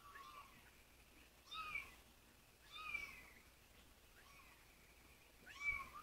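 Young bottle-fed kitten mewing: about four short, faint cries that rise and fall in pitch, coming every second or two.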